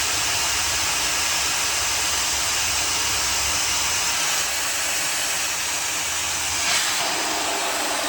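High-speed hair dryer blowing at full speed, a steady airy hiss, with a brief click and a slight change in its sound about seven seconds in.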